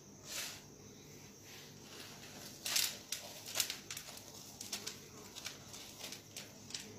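Crushed Kurkure (corn puff snack) crumbs crackling and rustling as a hand presses them onto a batter-coated patty, with a few sharper crunches near the middle.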